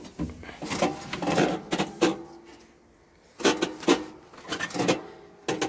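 Handling noises of someone climbing into a tractor cab and settling in the seat: irregular rubbing, creaking and knocking in two spells with a short lull between them, and a sharp click near the end.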